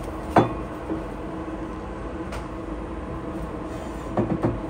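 Lab glassware being handled: one sharp knock about half a second in, a couple of lighter knocks, and a quick cluster of knocks near the end, over a steady low machine hum.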